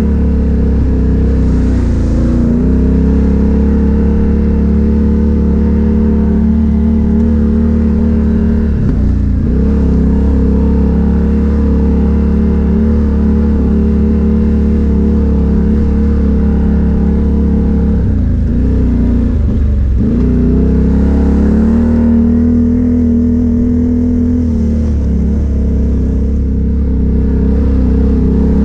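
ATV engine running hard under throttle, its pitch dipping and climbing back a few times as the throttle is eased off and opened again.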